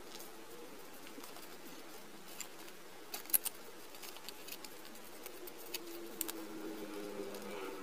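Crisp rustling and crinkling of a small square of origami paper being creased and folded by hand, with a few sharp crackles, the loudest about three seconds in. A faint low wavering tone sits underneath, strongest near the end.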